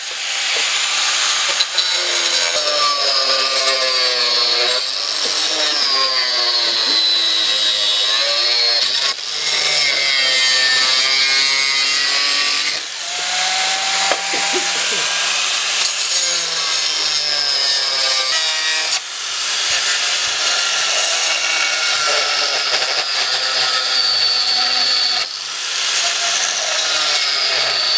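Electric angle grinder cutting slits into a clear plastic bowl, the cutting disc grating through the plastic over the motor's whine. The whine's pitch sags and recovers repeatedly as the disc is pressed in and eased off, with a few brief lulls as the cut is repositioned.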